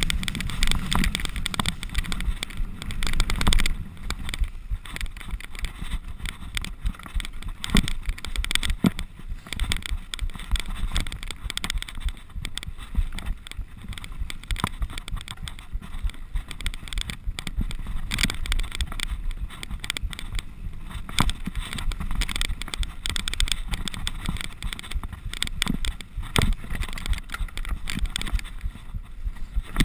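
Mountain bike descending a dirt forest singletrack: tyres rolling and skidding over mud and roots, with the bike rattling and knocking over the bumps throughout.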